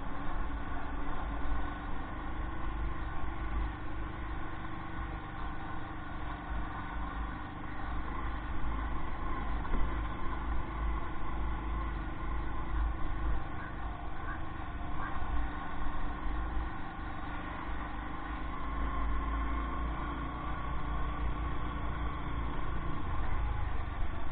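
Motorcycle engine running steadily at low road speed, heard from on the bike, with heavy wind buffeting on the microphone.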